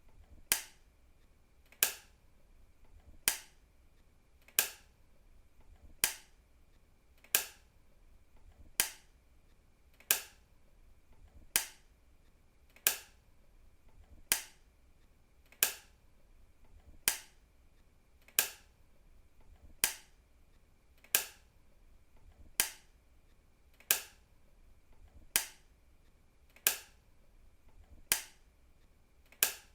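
A switch being flicked on and off, one sharp click about every second and a half. Under the clicks there is a faint steady hum.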